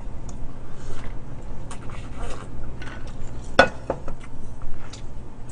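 Eating and drinking sounds: sipping from a stainless steel tumbler and chewing sauced fried chicken, with small scattered clicks over a low steady hum. About three and a half seconds in there is one sharp knock as the steel tumbler is set down.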